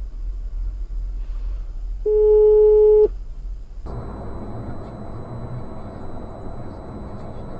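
Dashcam road noise: a low rumble, broken about two seconds in by a loud, steady electronic-sounding beep lasting about a second. Near four seconds it changes abruptly to a fuller, steady road-and-engine noise with a thin, high whine over it.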